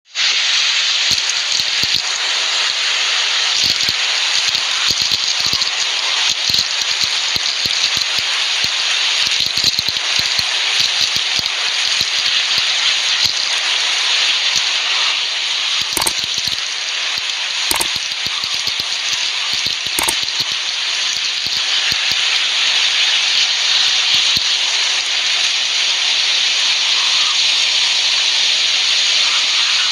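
Heavy rain pouring down steadily in a dense, even hiss, with scattered sharp taps.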